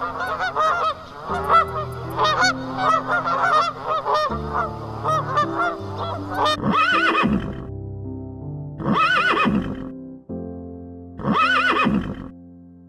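Geese honking in a fast, dense run, then from about six seconds in a horse whinnying three times, about two seconds apart, over background music.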